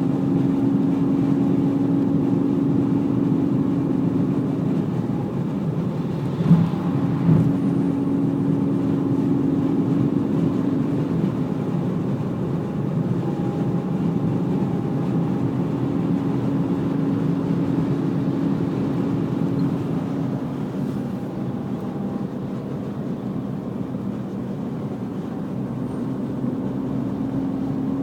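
A BMW E46 330 running, with a steady whine over the car's noise that fades in and out several times at an unchanging pitch. Two brief knocks come close together about a quarter of the way through.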